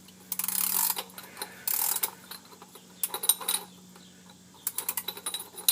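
Socket wrench ratchet clicking in four short bursts as it backs out the oil pan drain plug, which has just broken loose after being very tight.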